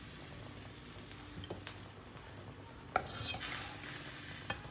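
A serving utensil clicking and scraping against a pan and plate as cooked chicken feet adobo is dished out, with a few sharp clicks, the loudest about three seconds in, and a brief hiss just after it.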